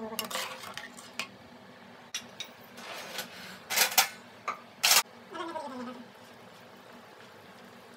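A metal spatula clinking and scraping against an aluminium pressure cooker as rice and dal are stirred into boiling water: several sharp clinks and a few short scrapes in the first five seconds, the scrapes being the loudest sounds.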